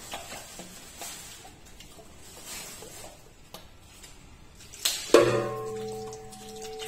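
Faint clicks and handling, then a loud metallic clang about five seconds in that rings on in several steady, bell-like tones, slowly fading.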